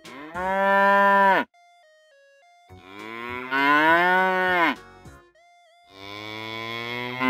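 A cow mooing three times, each moo lasting about one and a half to two seconds and dropping in pitch as it ends. The third moo runs on past the end.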